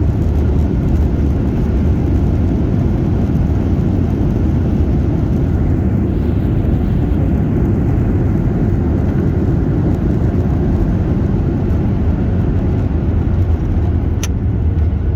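Steady low rumble of air and engine noise inside the cabin of a Boeing 737-800 airliner, with one brief click near the end.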